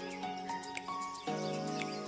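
Background music: held chords over light ticking percussion, the chord changing about a second in.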